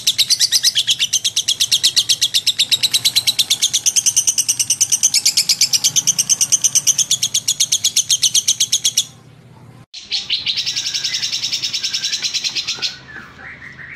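A songbird singing a fast, even run of sharp, high chirps that breaks off about nine seconds in. After a second's gap it resumes for a few seconds, then fades to scattered fainter chirps.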